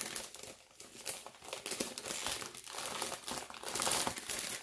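Foil-lined plastic snack wrapper crinkling in the hands, a dense, irregular crackle that is loudest near the end.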